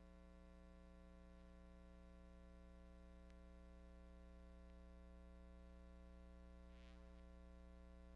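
Near silence with a faint, steady hum that does not change, and a couple of faint ticks.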